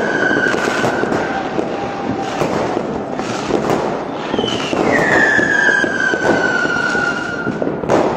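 Fireworks going off: dense crackling with sharp bangs, and two long whistles that fall slowly in pitch, one fading just after the start and another lasting about three seconds from past the middle.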